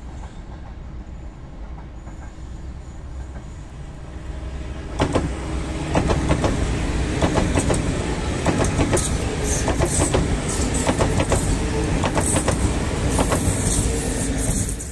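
Czech Railways class 680 Pendolino electric train passing close by: a fainter rumble as it approaches, rising about five seconds in to loud running noise with a rapid clatter of wheels over rail joints.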